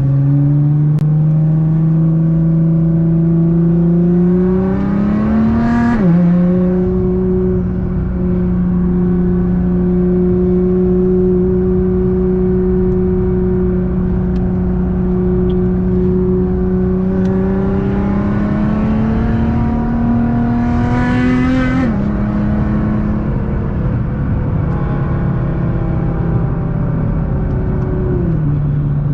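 Car engine driving under way: its pitch climbs, drops sharply about 6 seconds in and again about 22 seconds in as the car shifts up, runs steadily between, and falls once more near the end.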